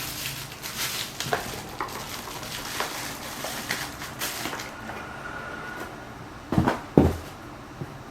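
Camera packaging and accessories being handled: rustling and small clicks, then two knocks in quick succession near the end.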